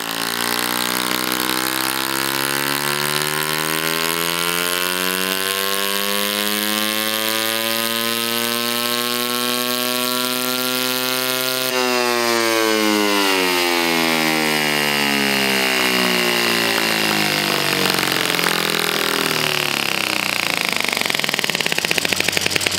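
Homemade 6.5 cc single-cylinder four-stroke glow model engine with a rotary valve, running on a test bench and accelerating a heavy flywheel: its pitch climbs slowly and steadily for about twelve seconds, then falls away as it slows, with a higher whine rising over it later. The run-up is far too long, the sign of a weak engine that makes only about 0.23 hp.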